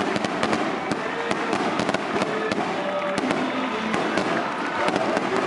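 Firecrackers going off in quick, irregular pops over the noise of a large crowd.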